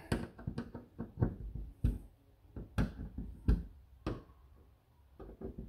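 Irregular light taps and clicks of a hand tool and hands working on a plastic cat door frame set in a garage door, loudest in the middle and sparser toward the end.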